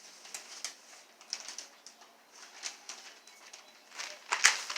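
Scattered light rustling and clicking, with one sharp knock about four and a half seconds in.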